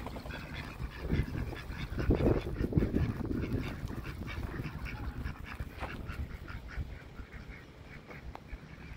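Domestic ducks quacking, in short calls on and off, with many small crackles; a louder low-pitched stretch comes about two to three seconds in.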